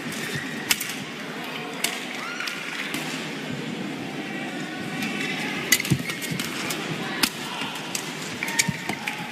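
Badminton doubles rally: sharp cracks of rackets hitting the shuttlecock at irregular intervals, with shoes squeaking on the court floor, over steady hall noise.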